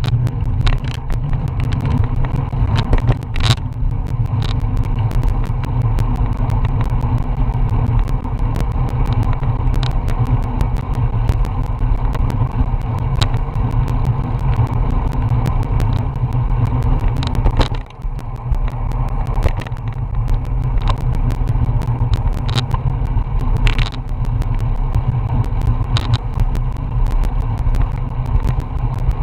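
Wind buffeting the microphone of a bicycle-mounted Garmin VIRB action camera while riding at about 15 to 19 mph: a steady low rumble with scattered sharp clicks. It drops out briefly a little past halfway.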